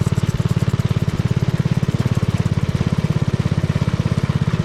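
Honda single-cylinder four-stroke engine of a mini trike running steadily, its firing beats coming in an even, rapid putt.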